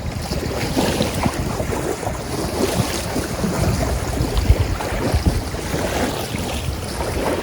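Strong wind buffeting the microphone in uneven gusts, with choppy river water splashing and lapping.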